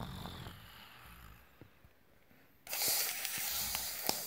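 Faint rustling, then a loud hiss that starts suddenly nearly three seconds in: a frying sizzle for the egg being cooked.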